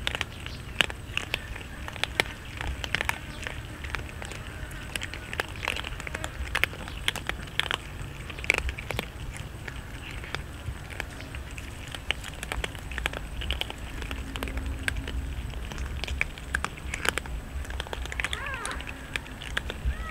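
Several cats crunching dry kibble: a dense, irregular run of crisp crunches and clicks.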